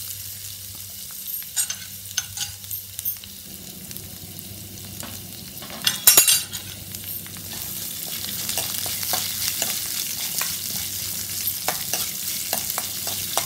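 Chopped onion frying in hot oil in a metal kadai, with a hiss that grows steadier and louder in the second half. A utensil clicks and scrapes against the pan as the onion is stirred, with one louder clatter about six seconds in.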